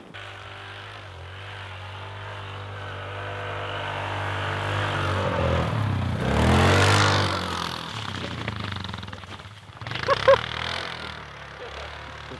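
Utility ATV engine running and pulling away, growing louder and sweeping up then down in pitch as it drives close past about six to seven seconds in, then fading. Two short high-pitched sounds come about ten seconds in.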